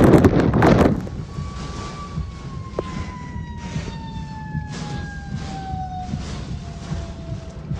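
Hurricane wind rushing loudly for about the first second, then cutting off suddenly. After that a fire truck's siren winds down, one long tone sliding slowly lower in pitch over a low rumble.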